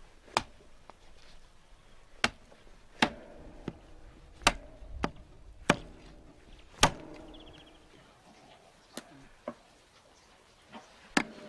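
Heavy cleaver chopping through raw rib meat into a wooden log chopping block: about a dozen sharp, irregularly spaced strikes, with a short pause about two-thirds of the way through.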